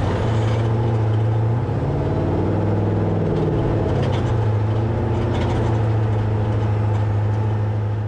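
Off-road race truck's engine running at low revs, heard from inside the cab, mostly steady with a brief rise in revs about two seconds in.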